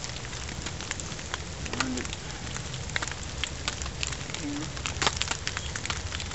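Water drops pattering irregularly, a few sharp ticks a second, over a steady low rumble of wet woodland.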